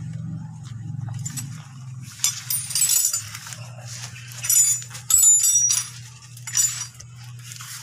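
Small metal parts of a clutch slave cylinder clinking as they are handled and set down, in several short clusters about two, four and a half, and six and a half seconds in, over a steady low hum.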